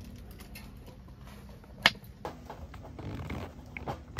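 Vegetables being handled on a wooden cutting board: scattered light taps and clicks, with one sharp knock about two seconds in.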